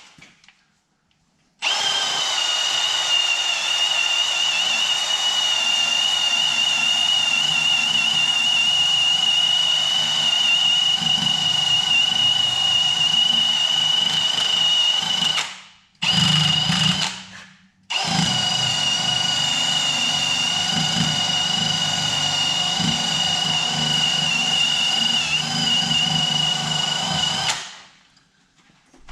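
A handheld electric power tool's motor running at a steady high whine. It stops briefly just past halfway, runs for a moment, restarts and runs on until it cuts off near the end.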